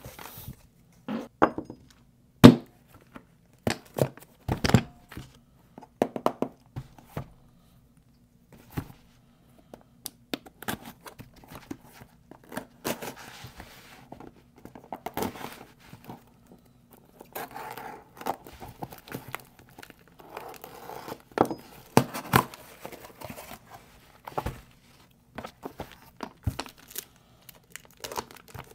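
Cardboard parcels being handled and opened by hand: packing tape and cardboard tearing, packing material crinkling, and a scatter of sharp knocks as boxes and items are put down, the loudest about two and a half seconds in.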